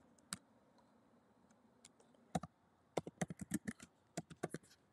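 Faint typing on a computer keyboard: a couple of single key presses, then a quick run of about a dozen keystrokes from about three seconds in.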